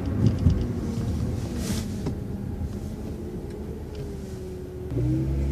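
City transit bus engine and drivetrain running, heard from inside the bus cabin. The tone eases off through the middle, with a few rattles near the start. About five seconds in it grows louder and deeper as the bus pulls harder.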